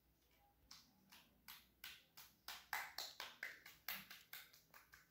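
A hand stirring and smearing a wet slime mix of glue, shampoo, toothpaste and baking-soda water on a tile floor: a quick run of short strokes, about three a second, starting about a second in and loudest around the middle.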